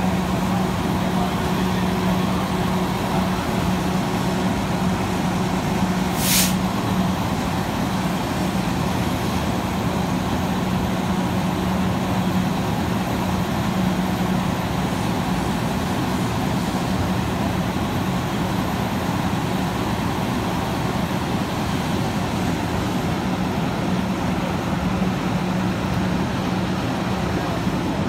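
Parked fire engine's diesel engine running with a steady drone, and a short hiss of air about six seconds in.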